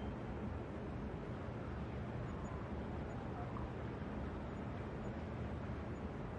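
Steady low rumble of distant city traffic, with a few faint thin tones rising and falling briefly around the middle.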